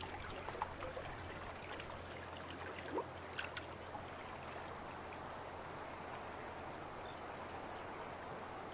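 Steady, low rush of water running over shoreline rocks, with a few faint ticks in the first few seconds.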